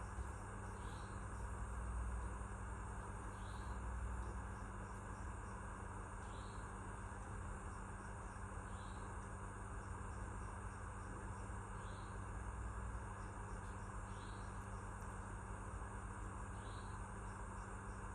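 Steady insect chorus with a short high chirp repeating about every two and a half seconds; no meowing is heard.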